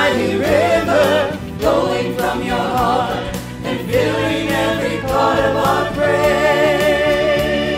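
A mixed choir of men's and women's voices singing a contemporary worship song in harmony over a band with electric bass. Near the end the voices hold one long note.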